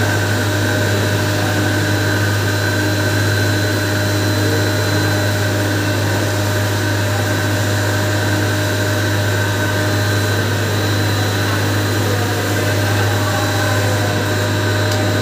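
Sugar pulverizer machine running steadily while it grinds granulated sugar fed into its hopper. A strong low hum with a steady whine above it.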